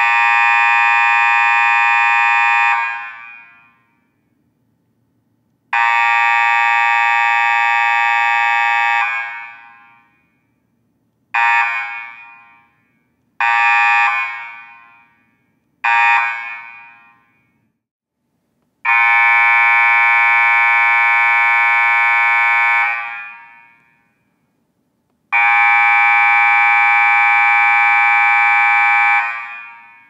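Basketball scoreboard buzzer sounded seven times for different lengths: two blasts of about three seconds, three short bursts of under a second, then two of about four seconds. Each is a harsh, steady buzz that cuts off and dies away over about a second.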